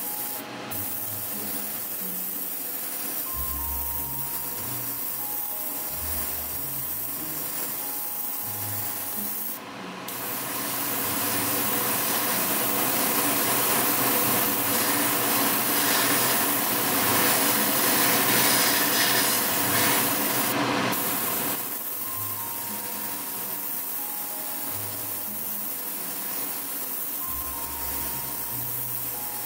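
Airbrush spraying paint: a steady hiss of air that breaks off briefly a few times and grows louder from about ten seconds in until about twenty-one seconds in. Faint background music plays underneath.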